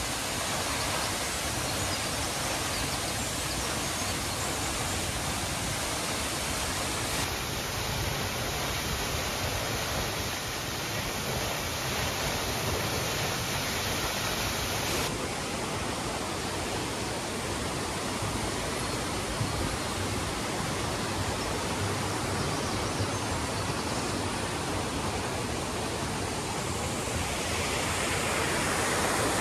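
Waterfall rushing steadily: the Sōmon Ichi-no-taki and Ni-no-taki falls on the Misen River, growing a little louder near the end.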